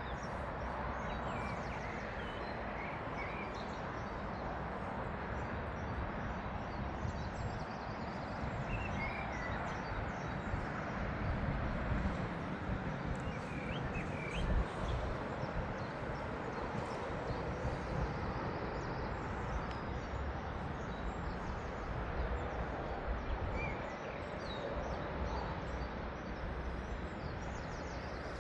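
Outdoor ambience: a steady low rumble and hiss, with short bird chirps now and then.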